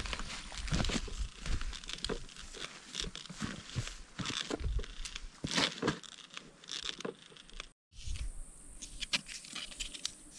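Footsteps crunching and rustling through vegetation, an irregular run of crackles.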